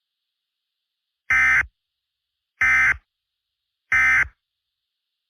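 Emergency Alert System end-of-message (EOM) data tones: three short, identical bursts of screeching digital tones, about a second and a quarter apart, signalling the end of the alert.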